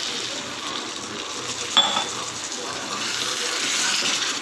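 Water poured into a hot pan of fried spice paste, potatoes and soya chunks, sizzling and hissing as it is stirred in, with one metal clink of the spoon against the pan about two seconds in.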